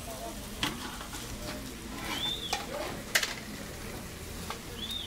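Skewered whole chickens sizzling over a charcoal grill, with a few sharp clicks or pops and two short high chirps about two and a half seconds apart.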